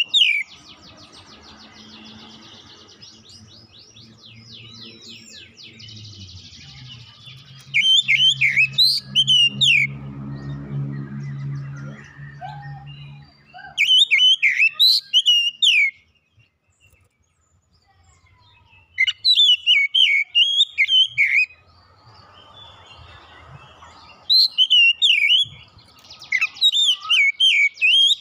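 Oriental magpie-robin singing: four loud bursts of quick, varied whistled phrases a few seconds apart. A fast buzzing trill sounds at the start and again near the end, and a low hum runs under the middle.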